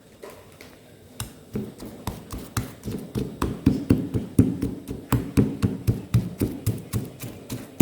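A pestle pounding in a mortar, steady knocks at about four strokes a second, starting about a second in.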